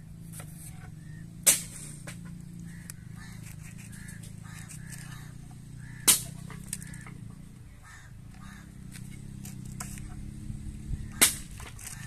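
Sharp clicks and cracks of hands snapping and cutting fresh green chillies over a cooking pot: three loud cracks about five seconds apart, among lighter taps, over a steady low hum.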